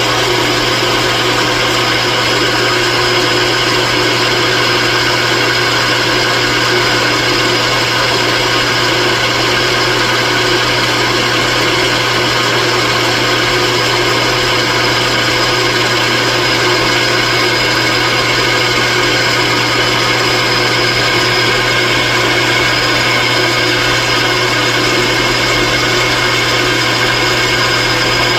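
A machine tool running steadily under power, a constant hum with several steady whining tones that do not change.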